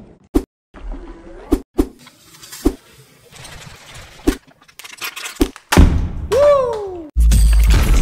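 Fast-edit sound effects: about half a dozen sharp clicks and knocks spaced through the first five seconds. About six seconds in comes a loud whoosh with a tone that rises briefly and then falls away. About seven seconds in, loud electronic music with heavy bass starts.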